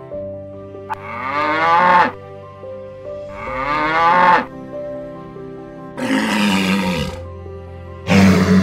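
Animal calls over background music: two drawn-out calls that rise and fall in pitch, about a second and three and a half seconds in, then a rougher, noisier call about six seconds in and another starting near the end.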